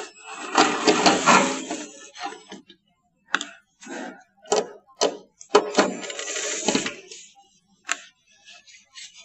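A water dispenser's front cover being worked loose by hand. There is about two seconds of scraping and rubbing, then a string of sharp clicks and knocks with a second stretch of scraping in the middle.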